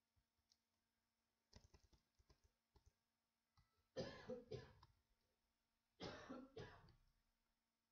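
A few soft computer-keyboard keystrokes, then a person coughs twice, about two seconds apart.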